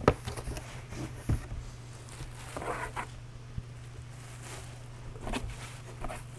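Plastic box liner rustling and crinkling as it is pulled and spread inside a cardboard packing box, with a couple of light knocks from the box near the start and a steady low hum underneath.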